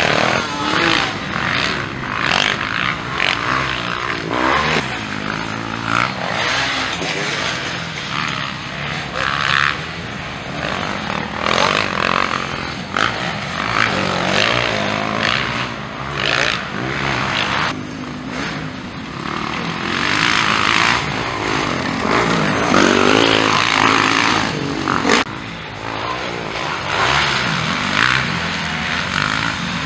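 Several motocross dirt bikes racing, their engines revving up and falling back again and again as the riders accelerate, shift and brake through the corners and pass by.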